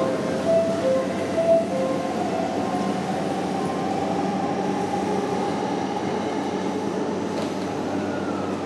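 Yamanote Line electric train pulling out of the platform. Its traction motors whine, rising in pitch as it gathers speed, over a steady rumble of the cars. A two-tone chime repeats through the first couple of seconds.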